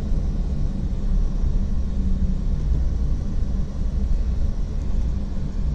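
Steady low rumble of engine and road noise heard from inside a moving car's cabin.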